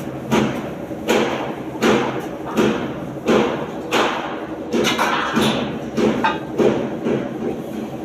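Heavy hammer blows struck at a steady rhythm, about ten in all, roughly one every three-quarters of a second. Each blow rings briefly, as on the steel of a shipping container under repair.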